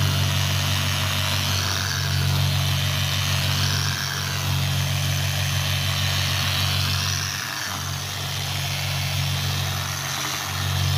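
Milwaukee angle grinder with a wet polishing pad running against a wet vanity countertop, polishing out a scratch. The motor runs with a steady hum over a hiss, the hum dipping briefly a few times.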